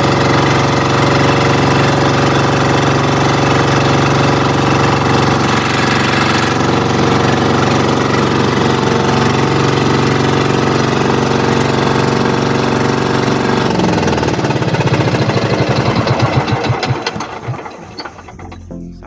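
Motorized outrigger boat's engine running steadily under way, then slowing about two-thirds of the way through to separate, ever slower firing strokes and stopping near the end.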